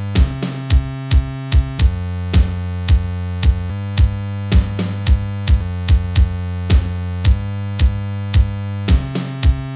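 Electronic synth music: held synthesizer chords over a heavy bass, driven by a steady drum-machine beat, with occasional crashing noise hits a few seconds apart.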